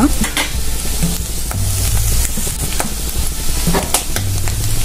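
Clam meat frying in coconut oil with onions in a nonstick pan on a low flame: a steady sizzle with a few light clicks and pops scattered through it.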